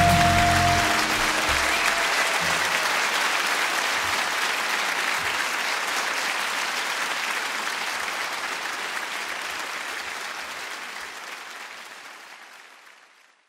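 A concert audience applauding as the last held notes of the song end about a second in; the applause fades out gradually and is gone near the end.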